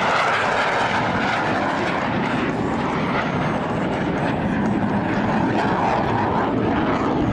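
An F/A-18 Super Hornet's twin jet engines flying past at high power: loud, steady jet noise with no letup.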